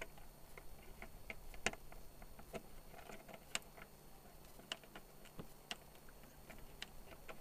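Irregular clicks and taps of a newly fitted cylinder lock and its latch on an RV baggage-compartment door, worked by hand as the lock is tested.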